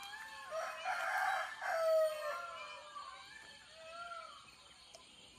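A rooster crowing, loudest about one to two seconds in, over many other birds making short repeated calls that fade toward the end.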